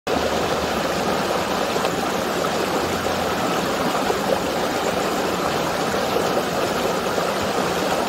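Stream water rushing and splashing steadily as it cascades over boulders.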